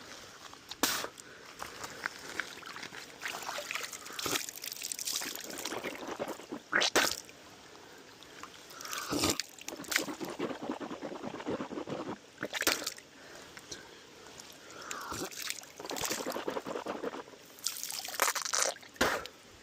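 Hands scooping creek water and splashing it onto a face: irregular splashes, pours and drips, with several sharper splashes a few seconds apart, over a trickling creek.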